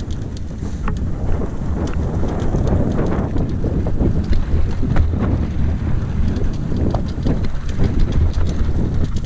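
Wind buffeting the microphone of a camera on a mountain bike descending a rocky dirt trail, with the tyres crunching over stones and the bike rattling in many quick clicks.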